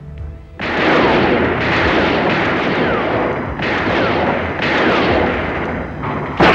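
Gunfire in bursts, starting about half a second in, with a new burst about once a second and short falling whistles among the shots; it grows louder near the end.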